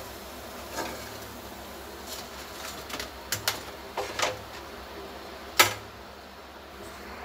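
Scattered metallic clicks and taps of a slotted spoon against a kadhai and a serving plate as fried moong dal balls are lifted out and set down. The sharpest tap comes a little past two-thirds of the way through.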